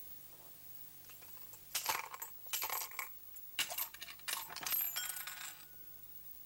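Coins being cast for a divination, clattering onto a hard surface in four or five quick rattling bursts over about four seconds.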